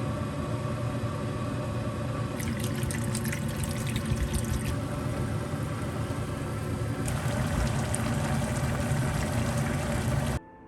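Water running steadily, with light clattering a couple of seconds in; it cuts off abruptly near the end.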